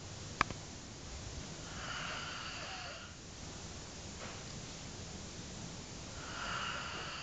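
A man snoring in his sleep: two long, noisy breaths about four seconds apart. A sharp click comes just under half a second in.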